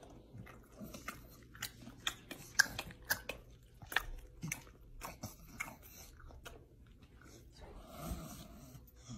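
English bulldog eating dry cereal from a pot, chewing with an irregular run of quiet, crisp crunches.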